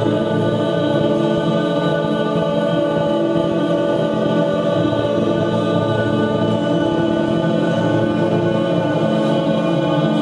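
Sustained choir-like drone: many held tones stacked into one steady chord, unbroken.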